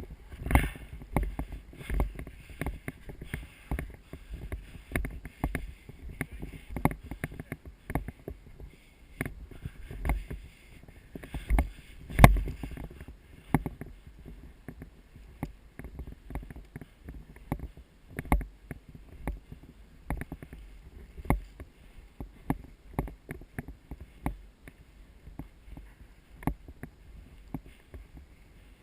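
Irregular knocks and rustling close to the microphone, with one sharp, louder knock about twelve seconds in.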